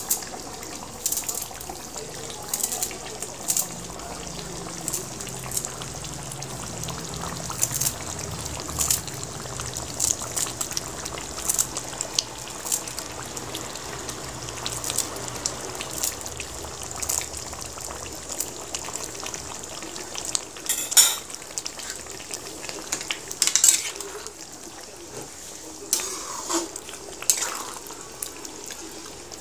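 Metal ladle clinking and scraping against a steel kadhai as a chicken curry is stirred, over the steady bubbling sizzle of the curry cooking. Repeated sharp clinks, the loudest about two-thirds of the way through.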